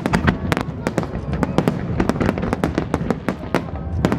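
Aerial fireworks shells bursting in rapid, overlapping succession: many sharp bangs a second over a continuous low rumble.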